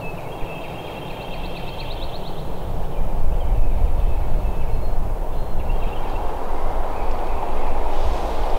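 Wind buffeting the microphone, a low rumble that grows louder about three seconds in. Over it, a songbird's rapid trill in the first couple of seconds, then a few faint bird whistles.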